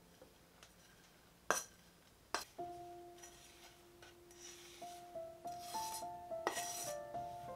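Two sharp knocks, then a knife scraping chopped parsley off a wooden cutting board into a glass bowl in about four short strokes. Soft background music with plucked notes starts a little after the knocks.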